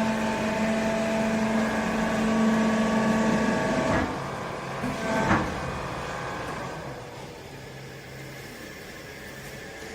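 Vertical chamber baler's hydraulic unit running with a steady pitched whine, then two sharp knocks about four and five seconds in, after which it runs on with a quieter hum.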